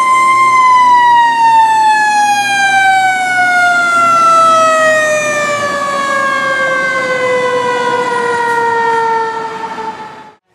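Fire truck siren, a single pitched tone that tops out about half a second in, then slowly falls in pitch as it winds down, fading out near the end.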